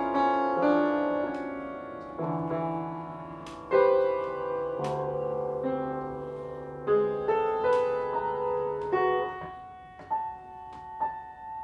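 Piano being played: chords and single notes struck and left to ring, with a sharp accented chord a little under 4 s in. After about 9 s the playing thins to a few soft notes ringing out.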